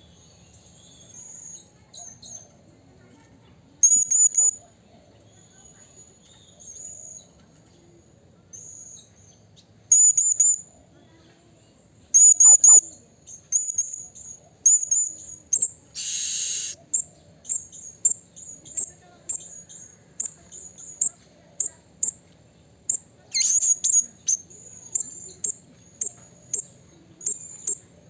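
Blue-crowned hanging parrot (serindit) calling: thin, very high-pitched notes, in scattered short clusters at first, then after a brief harsh buzz about halfway, a fast run of short chirps at roughly two a second.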